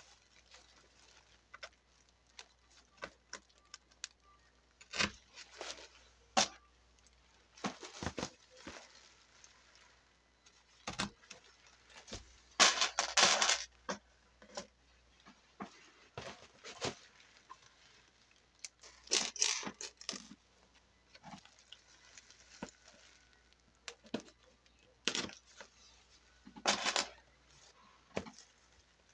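Plastic sheeting crinkling and rustling under hands as pins are set into a crocheted doily to block it, with scattered soft clicks and taps. There are several louder crinkly bursts, the biggest about halfway through.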